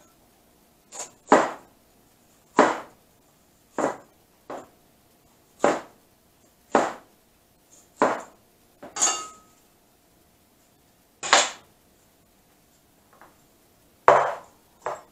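Chinese cleaver chopping a green bell pepper on a plastic cutting board: separate, unhurried knocks of the blade striking the board, about one a second.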